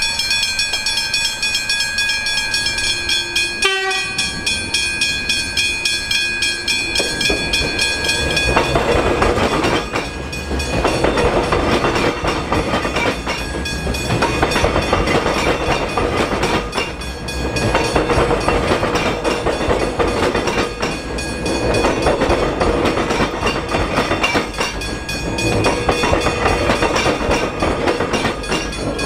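Melbourne X'trapolis electric train running past: a steady electric whine for the first several seconds, then a loud rush of wheels on rails with clickety-clack that swells and dips every few seconds as the carriages go by.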